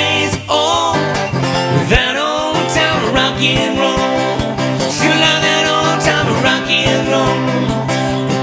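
A singer with an acoustic guitar, singing while strumming in a steady rhythm.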